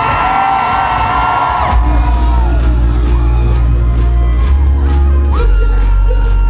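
Loud electronic dance music from a DJ set, with gliding synth lines. A heavy bass and a steady beat come in about two seconds in, and the bass note shifts near the end.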